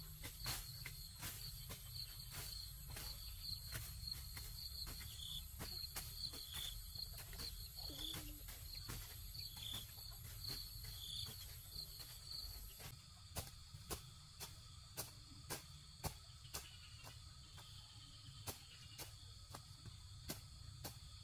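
Insects chirping in a high, pulsing trill, with a scatter of sharp knocks, a few of them louder in the second half.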